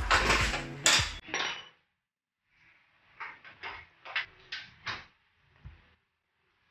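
A run of sharp metallic clanks and knocks, about six in two seconds, some with a short ring: the bare steel scooter frame and engine-mount parts knocking together as they are shifted by hand.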